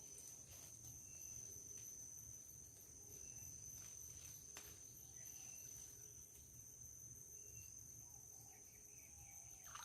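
Faint outdoor ambience: a steady, high-pitched insect drone, typical of crickets, over a low rumble, with one faint click about halfway through.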